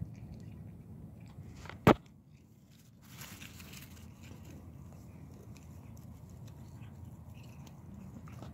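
A cat eating, with faint chewing over a steady low rumble. One sharp click about two seconds in is the loudest sound, followed about a second later by a short rustle.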